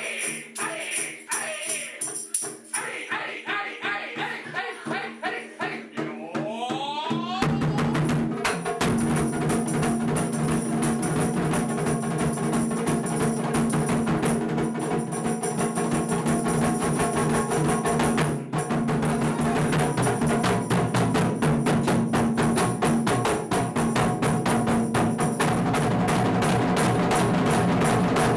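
Percussion-led music. It starts with jingling percussion on a quick, even beat, then about seven seconds in it turns fuller, with drums and a heavy low end under a dense steady rhythm.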